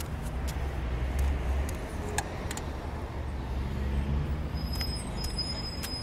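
Low steady rumble of distant road traffic, swelling slightly twice, with a few faint clicks.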